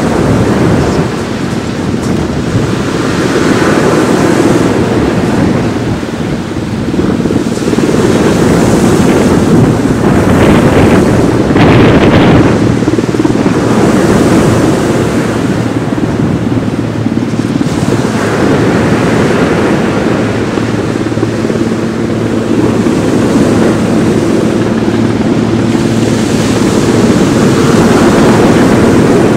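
Sea surf breaking on a beach, with heavy wind buffeting the microphone; the noise rises and falls in loud swells. A steady low hum comes in during the last several seconds.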